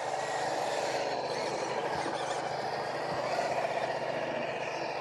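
Electric motor and geared drivetrain of an RC scale crawler whining steadily as it drives, the pitch wavering slightly with throttle.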